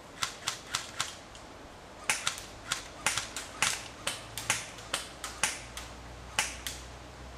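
Airsoft guns firing single shots: about two dozen sharp cracks at uneven intervals, some in quick succession, with a short lull a little over a second in.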